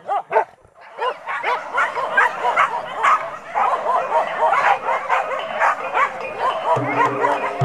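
A pack of pig-hunting dogs barking and yelping in a rapid, overlapping chorus as the chase gets under way, after a few loud single barks at the start. A steady low droning note of music comes in near the end.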